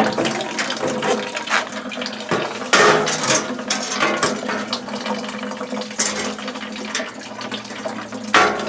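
Water running and trickling as the old gas boiler drains, with several sharp metal clanks and rattles from the boiler being handled, loudest about three seconds in, again around six seconds and near the end.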